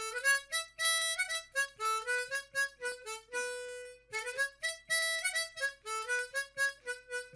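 Intro music: a solo instrumental melody of short, quick notes in phrases, with a brief break about four seconds in.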